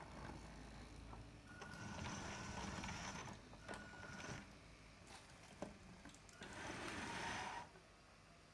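Faint small electric drive motor of an RC model tractor whining in short bursts as it moves a plastic toy Lemken Solitair 9 seed drill, with plastic clicks and rattles from the implement on a wooden tabletop. There is one sharp click about halfway through, and a louder rattling stretch near the end.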